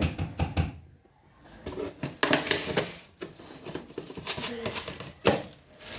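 Clatter and scraping of a kitchen utensil against a frying pan, with a sharp knock near the end, over the hiss of chicken pieces frying in hot oil.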